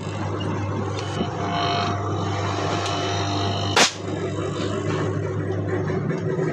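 Compressor running with a steady electric hum, freshly topped up with oil for R-22 service and on a test run. A loud, sharp knock comes about four seconds in, with a fainter one about a second in.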